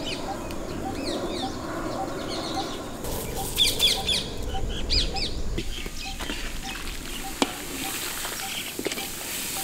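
Birds calling outdoors: short chirping calls, thickest in the middle, over a steady low hiss. There is one sharp tap about three-quarters of the way through.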